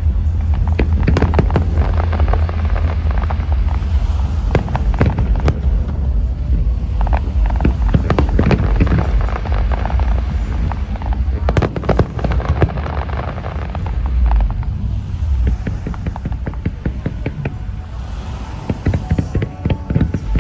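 Aerial fireworks display: a dense, continuous run of sharp cracks and bangs over a deep rumble of booms.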